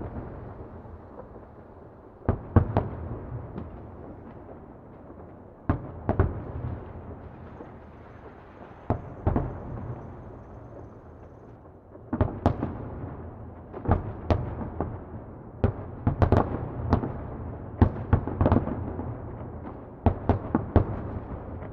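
Fireworks exploding in the distance: irregular clusters of sharp bangs, each trailing off in a rumbling echo, with the bursts coming thicker and faster in the second half.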